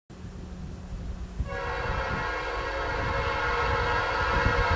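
Air horn of an approaching Norfolk Southern freight train, led by an SD70ACe locomotive, sounding one long multi-note chord that starts about one and a half seconds in, over a low rumble.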